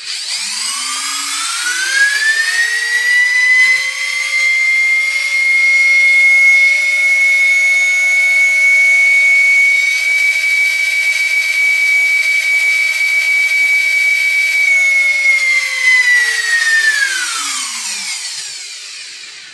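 Two-pole brushless motor driven by a Turnigy AquaStar 200A boat ESC, run up to full throttle with a rising whine, held at a steady high-pitched whine, then wound down about fifteen seconds in. It runs smoothly without vibration, drawing only about 4 amps with no load, which is normal for a motor this size.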